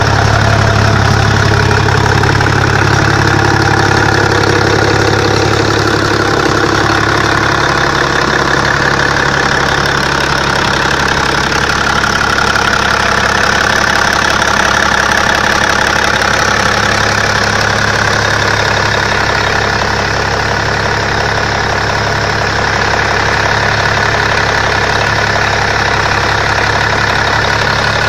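Freshly rebuilt Cummins KTTA-19C turbocharged diesel engine running steadily on a test stand.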